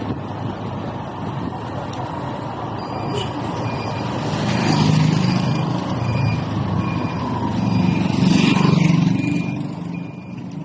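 Engine and road noise heard from a moving road vehicle, swelling twice as it picks up speed. A faint short beep repeats a little under twice a second through the latter part.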